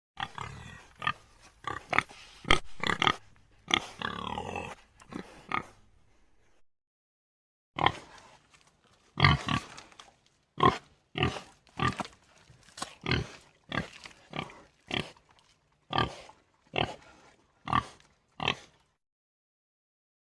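African warthog grunting. A quick run of short grunts includes one longer drawn-out grunt about four seconds in; after a short pause, a steady series of short grunts follows at about two a second.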